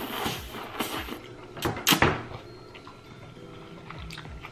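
Close-miked slurping of lo mein noodles, with the loudest slurp about two seconds in, then quieter mouth sounds.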